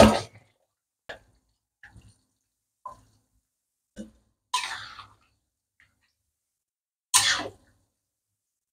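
Metal ladle stirring in a steel wok of coconut-milk stew: a louder knock at the start, scattered light clinks, and two longer scrapes and splashes, one about halfway through and one near the end.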